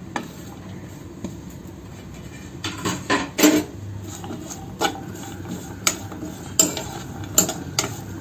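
Metal spatula scraping and knocking against a black nonstick kadai while stirring sliced okra sautéing in oil. The clacks come irregularly, starting about two and a half seconds in.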